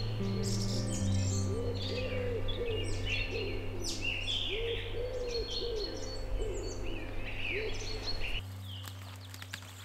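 Birds calling: many small birds chirping and twittering, with groups of low, hooting calls repeating every few seconds. A low steady music drone lies underneath and cuts out about eight seconds in.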